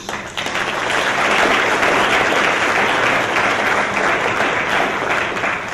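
Audience applauding: a dense wash of clapping that begins right away and thins a little near the end.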